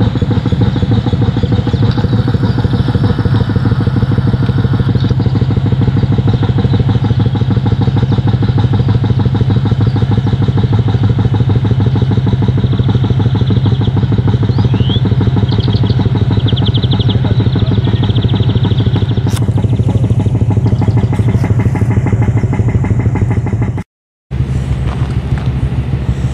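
Engine of heavy digging machinery running steadily with a low, even throb. A few high chirps come through in the middle, and the sound cuts out for a moment near the end before the engine goes on.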